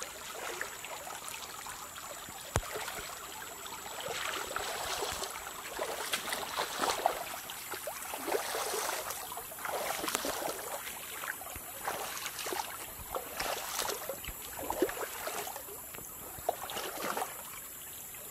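Shallow stream trickling over stones, in uneven splashy surges, with one sharp click about two and a half seconds in.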